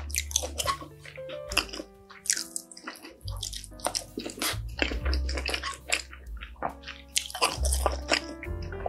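Close-miked wet chewing and smacking while eating kimchi fried rice and Spam, with many short sharp clicks and squishes. Background music with a low bass line plays under it.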